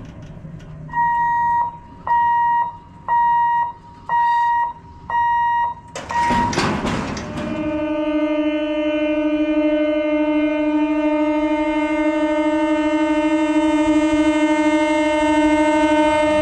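An electronic warning beeper sounds about six times, roughly once a second, like a level-crossing alarm. After a short burst of noise about six seconds in, an Indian EMU local train's horn starts a long continuous blast that grows slightly louder.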